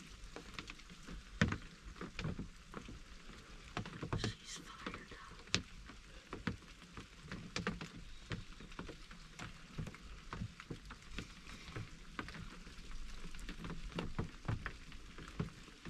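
Scattered raindrops tapping on a wooden hunting blind: irregular light ticks, a few louder ones, over a faint steady hiss.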